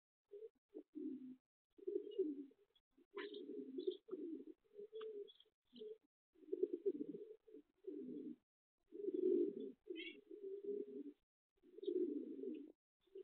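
Domestic racing pigeons cooing: low coos one after another with short breaks between them. A few faint, brief high chirps can be heard now and then.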